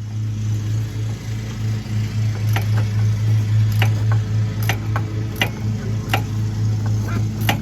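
Sharp ratchet-like ticks, about one or two a second, as bolts on a truck's front shock absorber are worked loose. Over them runs a steady low mechanical hum.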